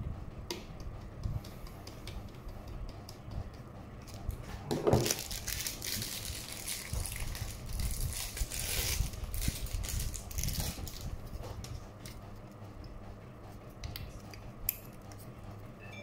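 Hands handling small metal PC parts and plastic packaging on a table: scattered clicks and rattles, with a knock about five seconds in and a stretch of crinkling and rustling from then until about eleven seconds.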